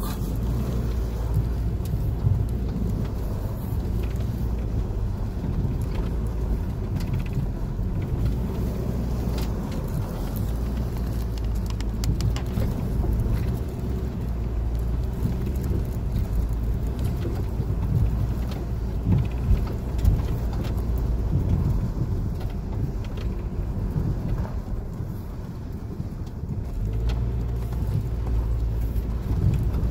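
Inside the cabin of a 1997 Honda CR-V driving on a rutted dirt road: steady engine and tyre rumble with scattered clicks and knocks from the rough surface.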